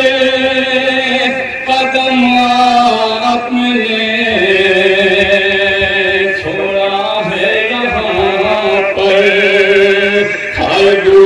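A man chanting a noha, a Shia lament, in long drawn-out notes with a wavering pitch.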